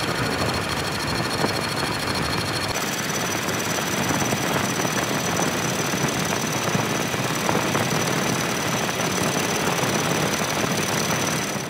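Metal lathe turning a truck engine piston blank: the spindle runs steadily while the cutting tool takes metal off the spinning workpiece, with a thin high-pitched whine over the machining noise that jumps to a higher pitch about three seconds in.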